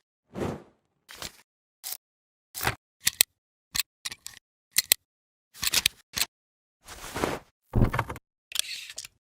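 A string of short editing sound effects, about fifteen, each cut off by dead silence: camera-shutter-like clicks and brief noise swishes, the later ones longer and fuller in the bass.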